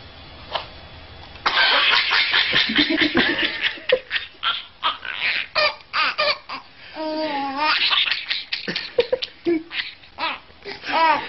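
A baby laughing hard in rapid, repeated bursts of belly laughter, starting about a second and a half in.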